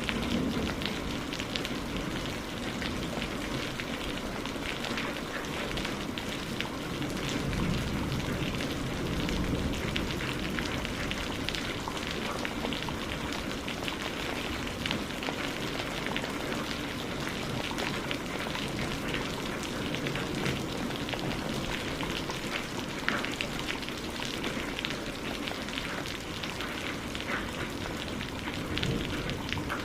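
Steady heavy rain falling, a continuous hiss with a dense patter of individual drops striking a surface.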